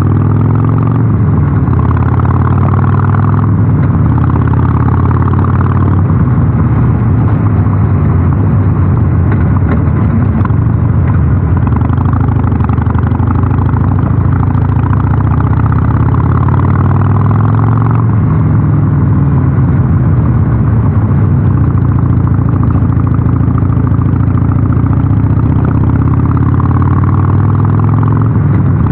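Harley-Davidson Sportster 883 SuperLow's air-cooled V-twin running under way through a North American-spec muffler. Its note climbs and falls with the throttle, dropping sharply a few seconds in and again just past the middle.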